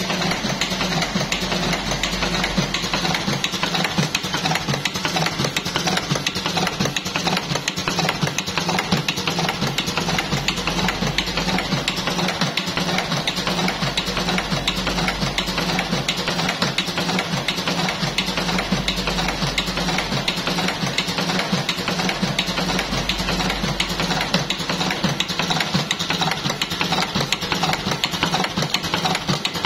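Buffalo V5s electric cigarette filling machine running continuously, its mechanism clattering in a fast, steady rhythm as it fills tubes.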